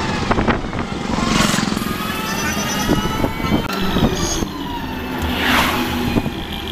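Engine and road noise heard from inside a moving vehicle, a steady low running sound with light rattles. Passing traffic swishes by twice, about a second and a half in and again near the end.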